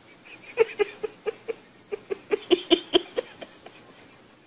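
A domestic cat chattering: a quick run of about a dozen short clicking chirps, some four or five a second, starting about half a second in and stopping a little past three seconds.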